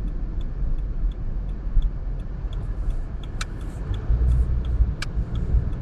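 Car interior road and engine rumble during a right turn, with the turn-signal indicator ticking evenly at about two to three ticks a second. Two sharper clicks come a few seconds in.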